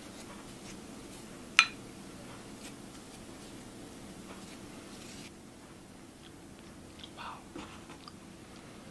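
Quiet food-preparation handling sounds: one sharp click about a second and a half in and a few soft taps near the end, over a steady low hum.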